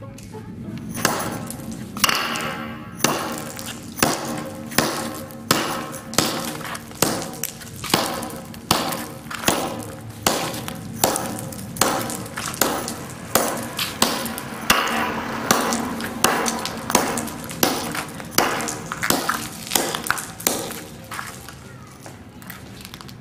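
Claw hammer smashing hard-candy heart lollipops on a tiled floor: a sharp crack with a short ring on each blow, repeated steadily about once every 0.8 seconds. The blows start about two seconds in and stop near the end.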